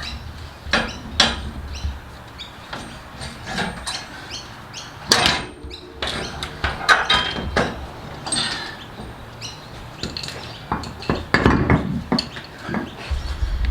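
Hand tools clinking and knocking on metal suspension parts, with irregular sharp clanks and clicks, while the lower ball joint's castle nut is taken off.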